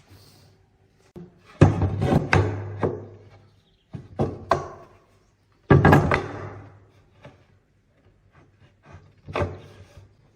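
Wooden pieces knocking and thudding against each other or a wooden surface: about six separate heavy knocks at irregular intervals, each ringing out briefly. The loudest come about a second and a half in and near the middle.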